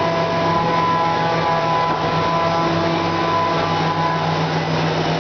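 Fadal 6030HT vertical machining center running with coolant spraying inside its closed enclosure: a steady machine hum with fainter steady whines above it and a hiss.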